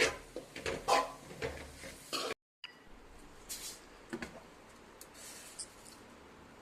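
A spoon stirring and scraping against a cooking pot, with several sharp knocks and scrapes over about two seconds. The sound then cuts out briefly, and only a few faint clicks follow.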